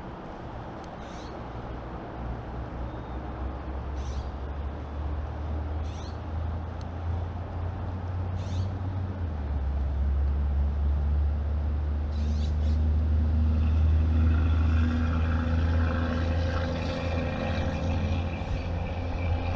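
Low engine rumble of a distant heavy vehicle, growing steadily louder, with a droning tone joining about two-thirds of the way in.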